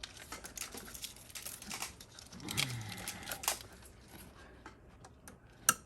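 Scattered small plastic clicks and rustles of ignition coil pack connectors and wiring being handled and pushed into place, with one sharp click near the end.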